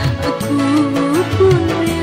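Dangdut band music: a melody line with sliding notes plays over tabla-style hand-drum strokes whose low notes bend upward in pitch, with tambourine and maracas keeping the beat.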